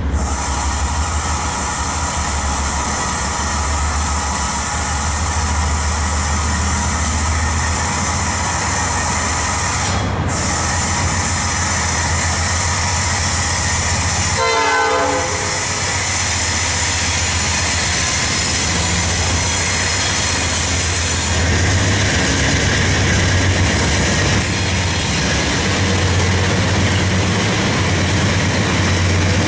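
CN freight train's lead diesel locomotives approaching and passing close by, with a steady, loud engine rumble and the train's horn sounding.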